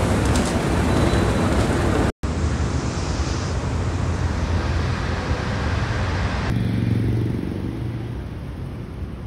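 Steady road-traffic noise, a continuous rumble and hiss, broken by a brief dropout about two seconds in.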